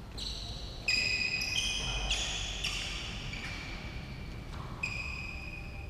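Sneakers squeaking on the badminton court floor as players move through a doubles rally: a quick run of sharp, high squeaks in the first few seconds and another just before the end.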